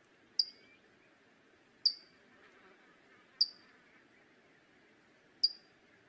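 Canário-do-mato (flavescent warbler) giving four short, sharp, high call notes, each dropping slightly in pitch, spaced about one and a half to two seconds apart, over a faint steady hiss.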